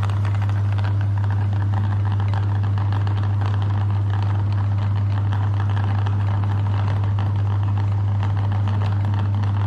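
Electric meat grinder running at a steady pitch, its motor giving a low hum with a dense rattle of small clicks over it as it grinds.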